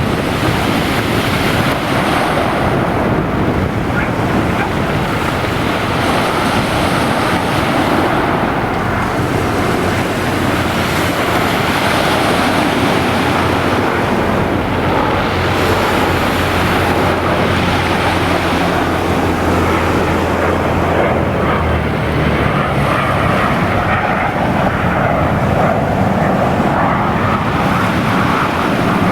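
Heavy wind buffeting the microphone over surf, with a jet airliner's engines droning steadily underneath as it lands.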